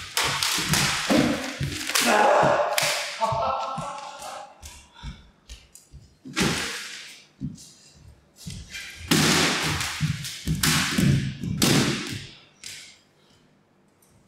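Sheets of paper flung through the air, swishing and flapping, with thuds and slaps of bare feet on the studio floor. The noises come in bursts, loudest in the first few seconds and again from about nine to twelve seconds in, then die away near the end.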